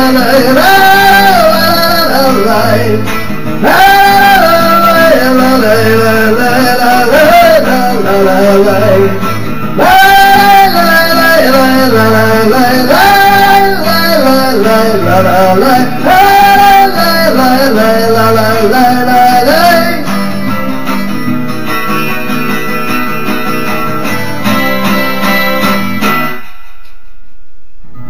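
Song music in a break between verses: a lead melody over guitar accompaniment and a regular bass pulse, thinning out and getting quieter about two-thirds through, then stopping briefly near the end before the guitar comes back in.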